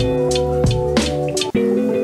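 Background music with plucked guitar and drums; the drums and bass drop out about one and a half seconds in.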